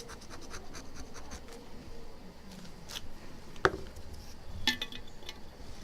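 Plastic knife scraping and rubbing softened glue on an iPhone 6 Plus screen in quick short strokes, with two sharp ticks against the glass about a second apart, the first the louder.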